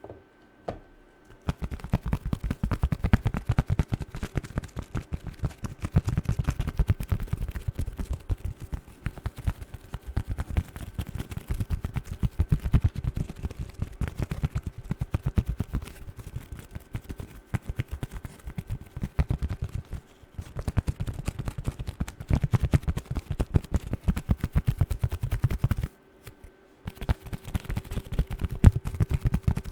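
Fast fingernail tapping close to the microphone: a rapid, continuous run of clicks with a deep thud under each, pausing for about a second near the end before starting again.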